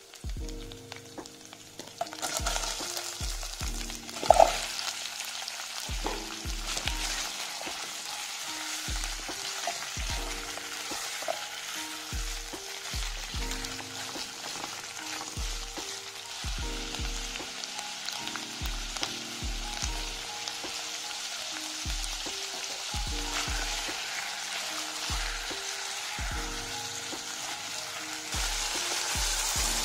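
Minced garlic, then chunks of carrot and onion, sizzling in hot olive oil in a nonstick pot while being stirred with a spatula, with one loud clank about four seconds in. Soft background music with a steady beat plays underneath.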